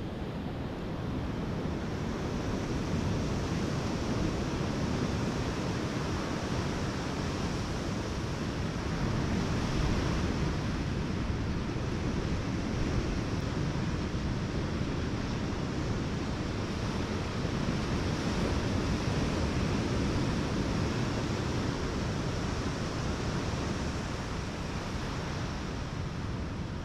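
Ocean surf breaking on a beach: a steady rushing wash that swells and eases slowly.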